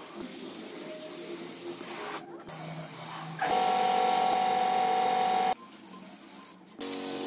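Compressed-air paint spray gun spraying in separate passes: a steady hiss with a fixed whistling tone, loudest for about two seconds in the middle, and shorter, quieter bursts around it.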